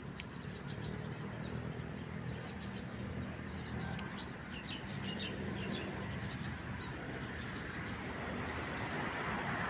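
Small birds chirping in short, high, scattered notes, thickest in the middle, over a steady low hum.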